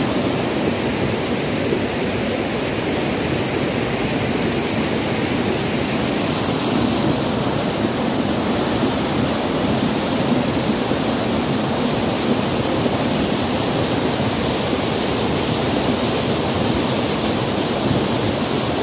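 Muddy floodwater rushing fast down a gravel and stone channel in a flash flood: a loud, steady rushing noise.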